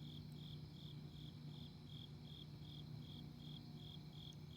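Crickets chirping at night, a steady high chirp repeating about two and a half times a second, faint, over a low steady hum.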